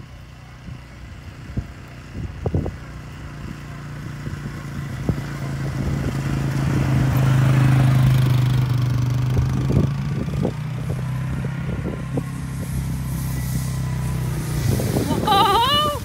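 ATV (four-wheeler) engine running at a steady pitch as it passes, growing louder to a peak about halfway through and then easing off; near the end the engine note stops and a person gives a short high-pitched yell.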